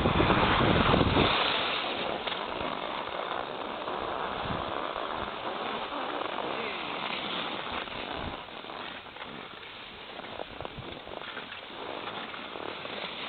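Skis sliding and scraping over packed snow, with wind buffeting the phone's microphone; the buffeting is heaviest in the first second or so, then settles into a steadier hiss.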